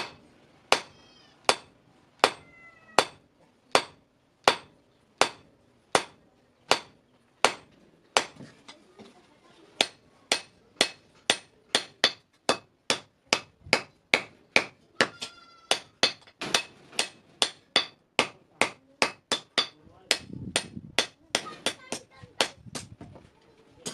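Hand hammer striking steel on an anvil in a steady forging rhythm, some blows ringing briefly. The blows come about one and a half a second at first, speed up to about two and a half a second after roughly eight seconds, and thin out to a few scattered strikes near the end.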